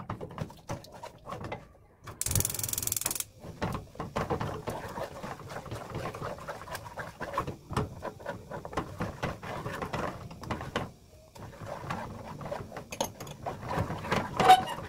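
Wooden spoon stirring and scraping a thick gochujang chilli sauce around a nonstick wok-style pan as it heats toward a boil, making many quick small clicks and scrapes with a short pause near the end. A brief hiss about two seconds in.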